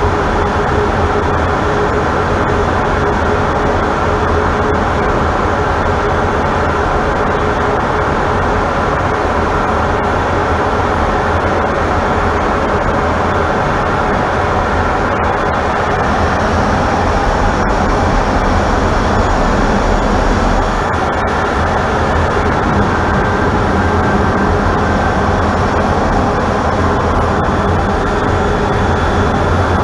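Steady cockpit noise of an F/A-18 in flight: the drone of its twin jet engines and the rush of air over the canopy, muffled as heard inside the cockpit. A deeper rumble swells briefly past the middle.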